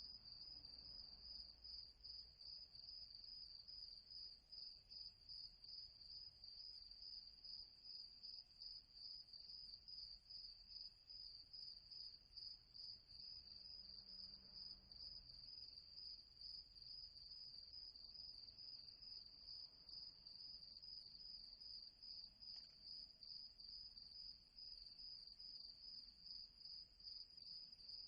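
Crickets chirping: a faint, steady, high-pitched pulsing trill that does not let up.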